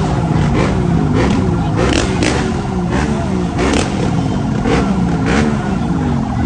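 Several motorbike engines revving over and over, each rev rising and falling in pitch in quick overlapping surges, amid crowd noise.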